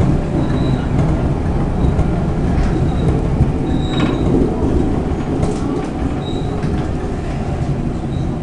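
Stockholm Metro C6 train running on the rails: a steady, loud low rumble of wheels and running gear, with a few clicks over rail joints and several brief high wheel squeals.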